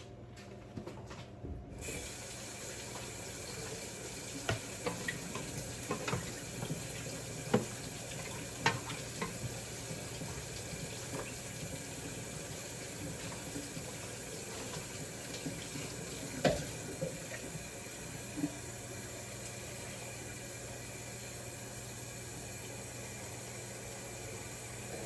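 Kitchen tap running steadily, starting about two seconds in, filling a container with water. A few sharp clinks and knocks sound over the running water.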